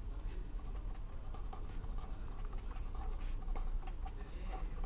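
A pen writing, a run of short, irregular scratching strokes, over a steady low hum.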